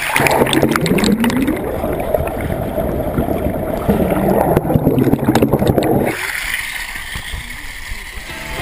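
Water pouring and gurgling right over the camera, heard muffled and deep. About six seconds in, it stops abruptly and only a quieter open-air hiss remains.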